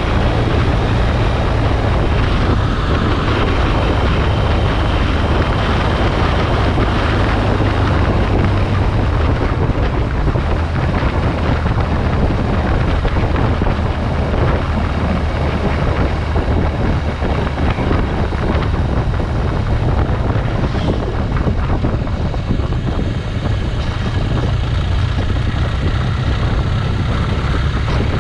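Motorcycle riding along at steady speed: wind rush on the microphone over a steady low engine drone.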